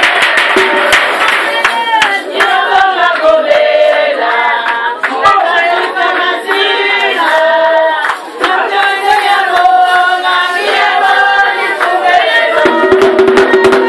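A group of voices singing together with hand clapping keeping a steady beat; the singing starts about a second and a half in and dies away near the end.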